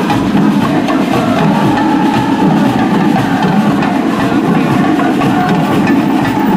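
Carnival mas procession's drums and percussion playing a dense, continuous beat, steady in loudness.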